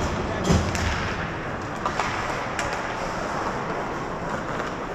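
Sharp knocks and cracks of ice hockey play, a heavy bang about half a second in and lighter cracks around two and two and a half seconds, over a steady rush of rink noise.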